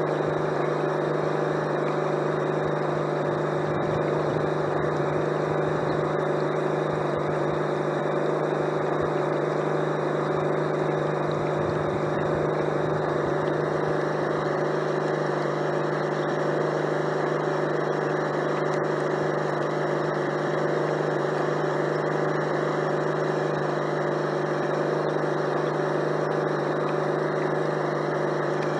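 A 1/12 scale radio-controlled DUKW amphibious truck model running on the water, heard from on board. It gives a steady, unchanging engine-like drone with a constant hum, from its drive and its engine-sound unit.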